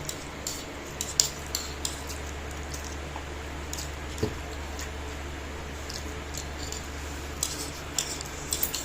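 Scattered light clinks of cutlery against plates as chowmein is eaten quickly, coming more often near the end, over a steady low hum.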